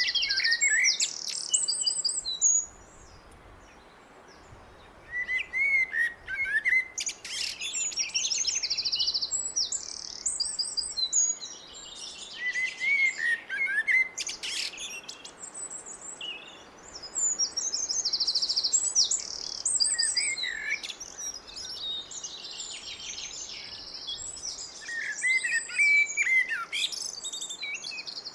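A blackbird singing in a series of phrases separated by short pauses. Each phrase mixes lower, whistled fluting notes with high, squeaky twittering and trills.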